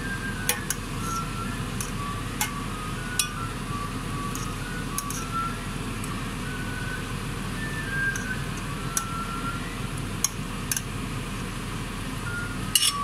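A simple tune of short, single high notes steps up and down over a steady low hum, with a handful of sharp clinks as a metal spoon strikes the stainless-steel pot while stirring.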